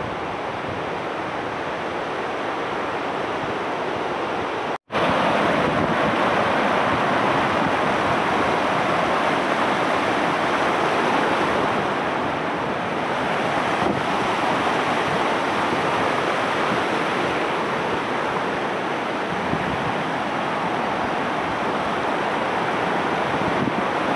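Rushing stream water, a steady loud rush of noise. It cuts out for an instant about five seconds in and comes back slightly louder.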